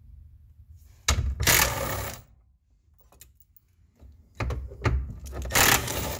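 Socket ratchet clicking in two bouts, one about a second in and one over the last two seconds, as the two bolts holding the steering column to the dash are backed out.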